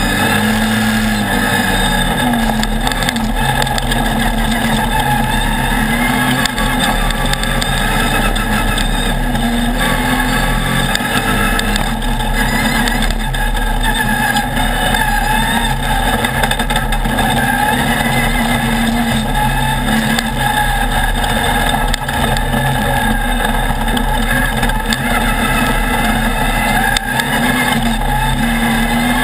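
Off-road race buggy's engine running hard under way on a dirt trail, heard from on board. It holds a steady note whose pitch rises and falls a little with the throttle, over a constant wash of noise.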